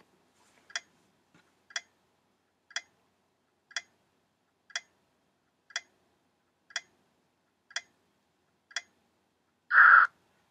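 Countdown-timer sound effect ticking once a second, nine ticks in a row, then a short buzz as the timer runs out, about ten seconds in.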